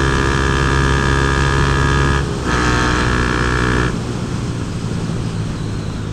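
Honda CB Twister single-cylinder motorcycle engine through a Protork Mine 3 sports exhaust, pulling hard under throttle. The note breaks briefly about two seconds in, comes back strong, then drops to a quieter, lower run about four seconds in.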